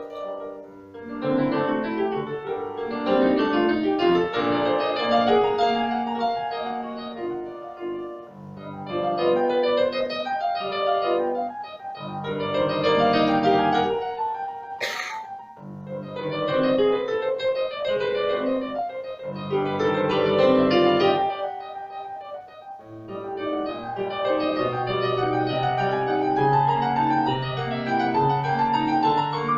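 Piano music: phrases of held, fading notes, with a short dip between phrases every few seconds and a single sharp click about halfway through.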